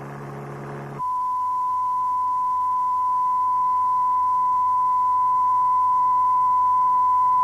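A low hum for about the first second, then a pure, steady 1 kHz test tone that slowly grows a little louder. It is a reference tone for learning to judge pitch by ear when diagnosing noise and vibration.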